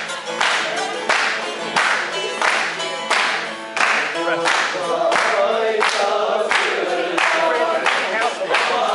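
Bağlama (saz) folk music with a group singing along and clapping in time, about one clap every 0.7 seconds. The singing grows stronger in the second half.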